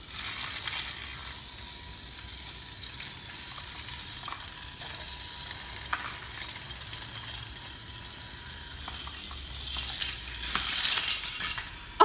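Battery-powered motorised Mega Bloks Thomas toy engine running along its plastic track, with a steady whirr of its small motor and wheels. A louder clattering comes about ten seconds in.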